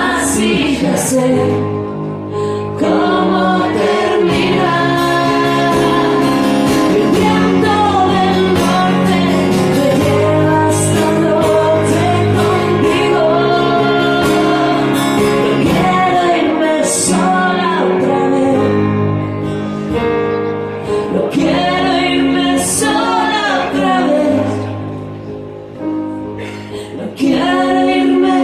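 Live pop song with female and male voices singing over a band. The music drops quieter for a few seconds near the end, then comes back in.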